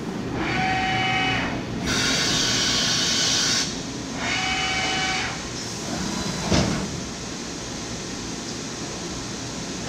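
Mazak AJV-60/80 twin-pallet vertical machining center running through its cycle: a whine of about a second, a burst of air hiss, the whine again, then a clunk, over a steady machine hum.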